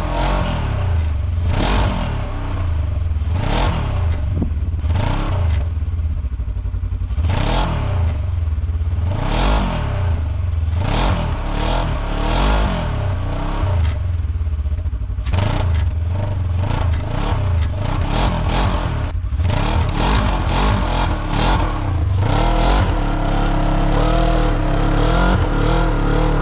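Polaris RZR 900 side-by-side's twin-cylinder engine revving up and dropping back again and again, every second or two, with its tires spinning in deep snow as it is rocked forward and backward to get unstuck. Near the end the engine holds a steadier, higher run.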